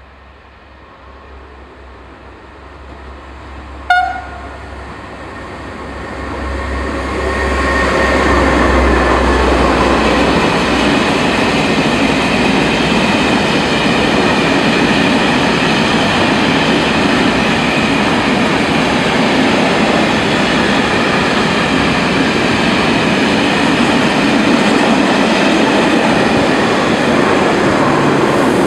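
A works train of hopper wagons hauled by a locomotive approaches and runs through the station. There is one short horn blast about 4 seconds in, then the steady rumble and wheel noise of the wagons rolling past for about twenty seconds, starting to fade near the end.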